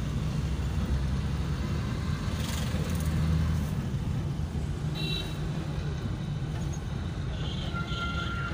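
Steady car engine and road noise heard from inside a moving car's cabin, with passing street traffic around it.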